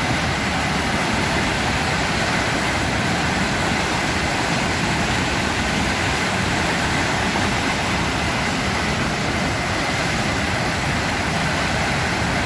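Muddy floodwater gushing out of a storm-drain outfall and cascading down a concrete spillway: a loud, steady rush of water, swollen by a heavy thunderstorm downpour.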